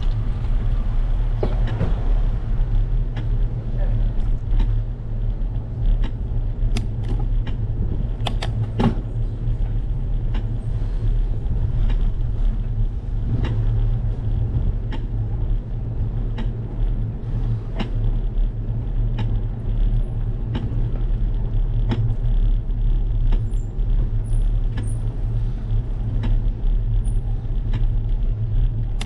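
Bicycle ride recorded on a bike-mounted GoPro: a steady low rumble of wind and road vibration, with scattered clicks and rattles as the bike rolls over bumps in the pavement.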